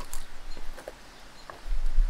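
Footsteps on loose stones: a few irregular steps, each a short clack of rock shifting against rock, with a heavier thud near the end.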